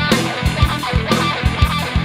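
Rock music in an instrumental passage: electric guitar playing over bass guitar and a drum kit with a regular kick-drum beat.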